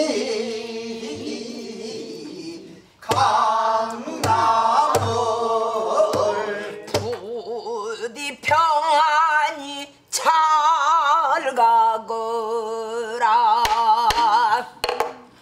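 A woman singing pansori in long phrases with wide, heavy vibrato, keeping time with her own stick strokes on a buk barrel drum.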